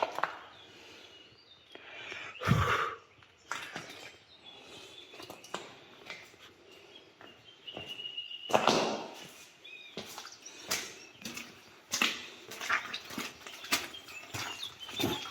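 Outdoor ambience: birds chirping now and then over scattered clicks and scuffs like footsteps on a path, with two louder brief noises about two and a half and eight and a half seconds in.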